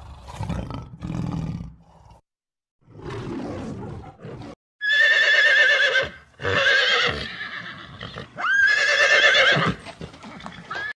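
A horse whinnying three times in loud, quavering calls from about halfway in, after a few seconds of low, rough sounds.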